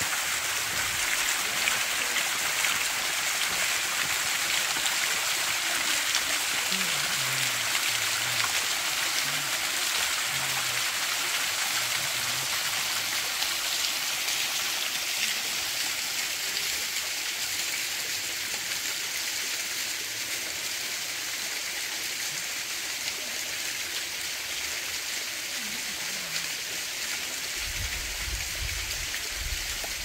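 River water running with a steady rush, easing a little in the second half.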